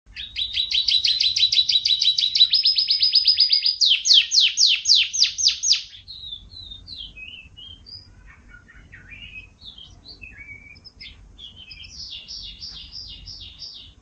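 Canary singing: loud, rapid rolling trills of repeated notes, changing to a faster trill and then a run of downward-sweeping notes, followed by softer, varied chirps and another trill near the end.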